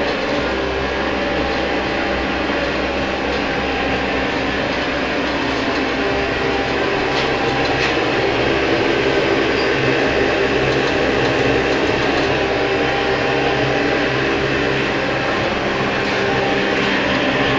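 Homemade used-engine-oil heater running: a steady rushing noise with a low mechanical hum underneath, a couple of faint ticks about halfway through.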